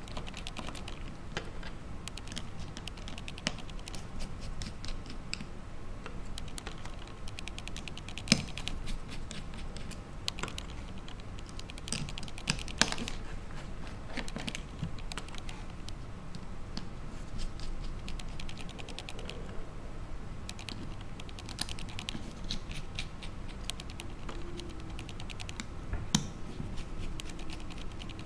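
Small, irregular light clicks and ticks of a mini Phillips screwdriver working loose the tiny screws that hold down an iPhone 3GS motherboard, with a few sharper clicks, over a faint steady hum.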